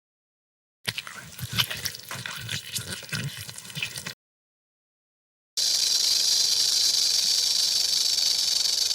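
Two separate animal-sound clips. About a second in comes an irregular crackling, clicking sound lasting about three seconds. After a silent gap, a loud steady hiss starts and runs to the end.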